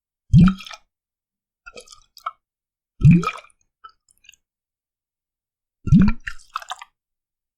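Water gushing and sloshing inside a glass bottle: three strong hollow glugs about three seconds apart, each rising in pitch, with smaller splashes and drips between them.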